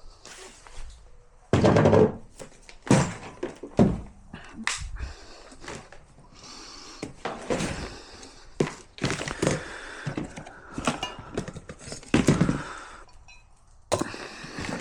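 Irregular knocks, thunks and clatter of dog dinners being made up by hand, with several loud knocks among them, the loudest about two seconds in and near twelve seconds.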